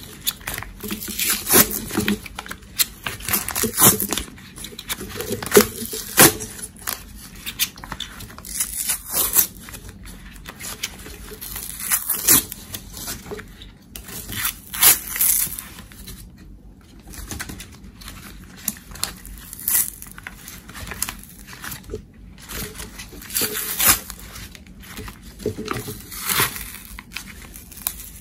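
Foil-lined cardboard Pringles tube being torn and peeled off a cylindrical soap loaf in strips, giving irregular tearing and crinkling throughout.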